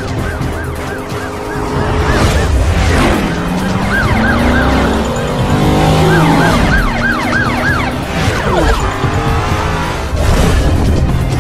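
A police siren yelping in quick rising-and-falling cycles, about four a second, coming in three stretches. Car engines rev and sweep past under it.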